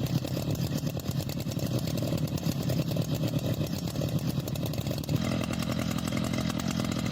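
Two-stroke chainsaw engine running steadily at speed, its note shifting about five seconds in.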